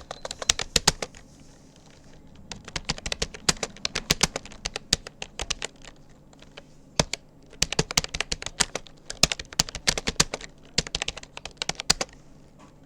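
Typing on a Rapoo computer keyboard: runs of quick key clicks broken by short pauses, one a little after the start and another around six seconds in, stopping shortly before the end.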